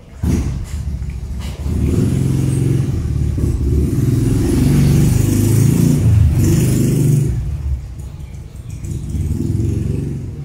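Motor vehicle engine running loud close by, starting suddenly and strongest in the middle.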